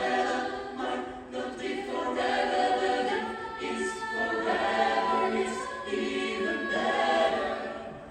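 Pop a cappella choir singing unaccompanied in harmony, in phrases of held chords; the singing falls away near the end.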